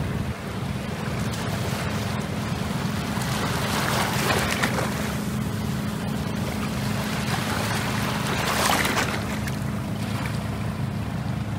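Small sea waves washing in at the shoreline, swelling twice, about four and nine seconds in, over a steady low rumble of wind on the microphone.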